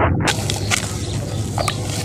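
Gritty crackling of a moulded red sand block being handled and crumbled in the hands: a dense hiss with scattered sharp ticks.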